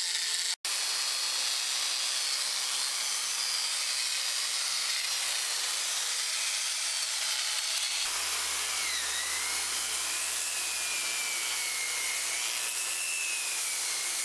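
Power wood-carving machine cutting into wood, a steady hissing grind. It cuts out for an instant near the start. From about eight seconds in, a whine wavers up and down in pitch as the cutter works.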